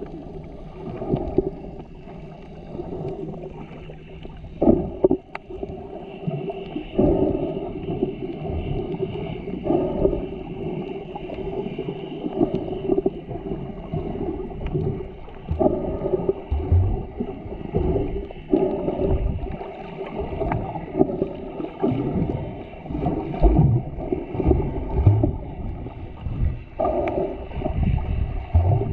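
Muffled underwater water noise from swimming snorkelers, a dull churning and gurgling that swells every two or three seconds, with almost no high tones.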